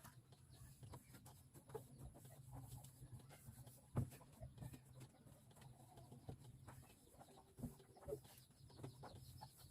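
Near silence: a low steady hum with faint chicken clucking in the background and scattered light knocks, one sharper knock about four seconds in.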